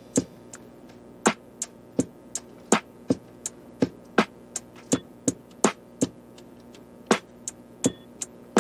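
Background music made of a sparse percussive beat: sharp clicks and hits about two or three a second over a faint sustained tone.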